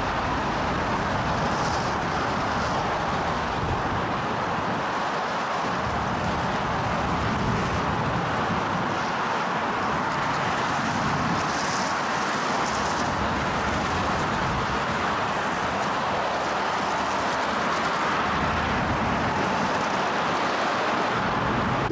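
Steady rushing noise of a moving vehicle, even throughout with no distinct knocks or voices.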